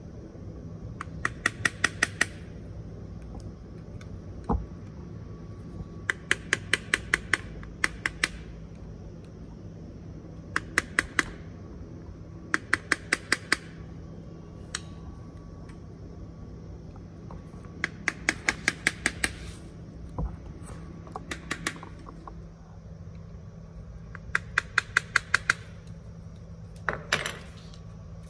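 Repeated runs of sharp, evenly spaced clicking, about six clicks a second and a second or so each, as a small hand tool works at the plastic clip on a motorcycle fuel pump assembly. A steady low hum runs underneath.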